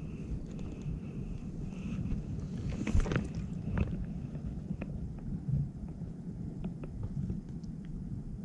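Wind buffeting the microphone as a steady low rumble, with scattered small clicks and rustles of fishing tackle being handled. The loudest click comes about three seconds in.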